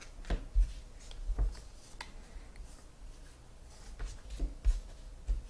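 Baseball cards being handled: scattered soft clicks and taps as the cards are sorted and laid down, over a low steady hum.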